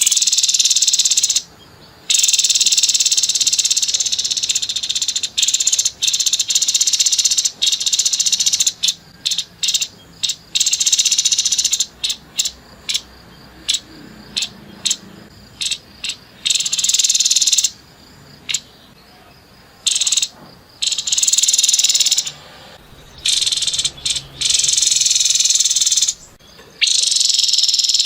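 Grey-headed babbler (tepus kepala abu) giving harsh, rasping rattling calls in bursts. Some bursts are long, others come as rapid stuttering runs in quick succession, with short pauses between.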